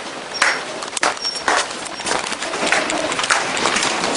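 Continuous clattering and rattling with many sharp knocks, amid the shaking of a strong earthquake.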